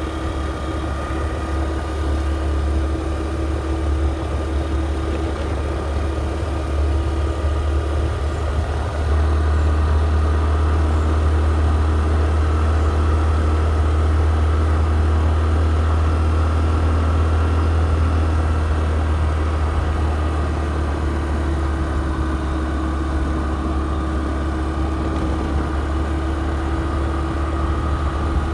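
Steady low drone of a vehicle on the move, a constant engine and road rumble with a faint steady hum above it, growing louder about nine seconds in.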